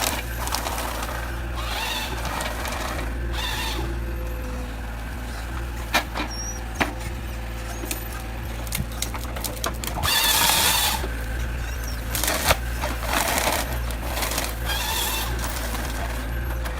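Steady low engine drone from heavy machinery, with a few sharp knocks and short bursts of hissing noise, the loudest about ten seconds in.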